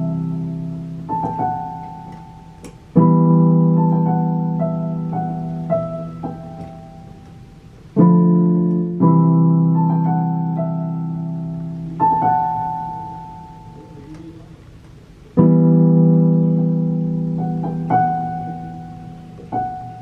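Electronic keyboard with a piano sound, played slowly: full chords struck every three to four seconds and left to ring and fade, with a few single notes added over them.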